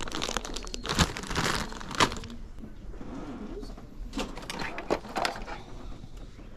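Plastic zip-top bag of small plastic toy figures crinkling as it is handled, with two sharp clicks about a second and two seconds in, then quieter rustling.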